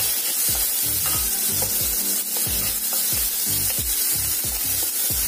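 Chopped onions sizzling in a little oil in a steel kadai while a wooden spatula stirs them in quick repeated strokes, the onions being sautéed until soft.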